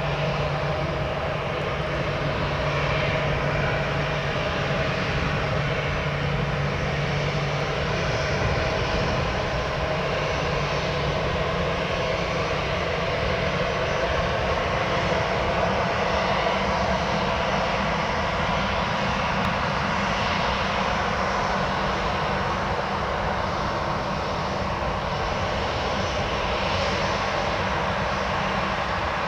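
Airbus A319 airliner's jet engines running steadily, a constant hum with several held tones; a low tone drops out about eight seconds in.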